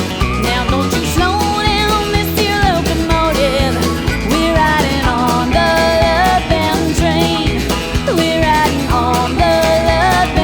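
Country rock band recording: drums keep a steady beat under bass, guitars and a wavering melody line.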